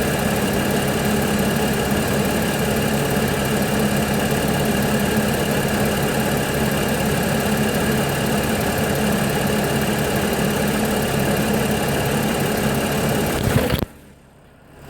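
Audi 3.0 TFSI supercharged V6 idling steadily on a cold start. The owner reports timing-chain rattle from this engine on cold starts. Near the end the sound cuts off suddenly.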